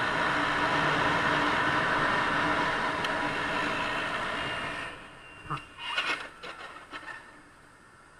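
Steady wind and riding noise rushing over a two-wheeler's camera, dropping off sharply about five seconds in. It is followed by a few short knocks and clatters as a scooter ahead collides with a taxi.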